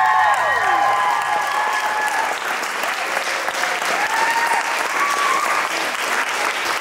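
Audience applauding steadily, with high whooping cheers in the first second and again at about four to five seconds in.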